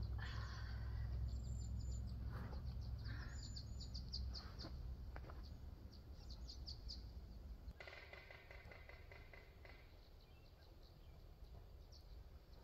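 Wild songbirds chirping and trilling, with a low rumble over the first few seconds and a steady, layered call lasting about two seconds near the middle.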